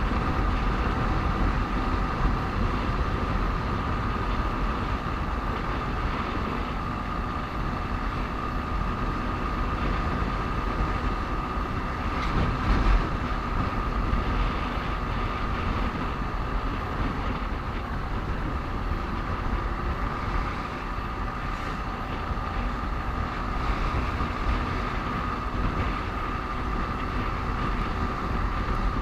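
Motorcycle engine running steadily while riding, with rushing wind noise and a constant high whine over the whole stretch.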